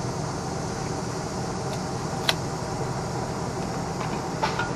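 Steady mechanical hum, like a fan or air conditioner running, with one sharp click a little after two seconds in and a few light ticks near the end.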